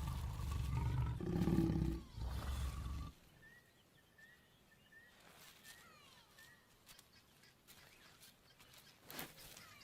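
Lions growling and snarling deeply during mating, loud for about three seconds and then cutting off. Afterwards faint bird chirps repeat about twice a second.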